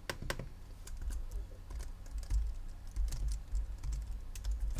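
Typing on a computer keyboard: scattered key clicks, a few at a time with short pauses, over a low steady hum.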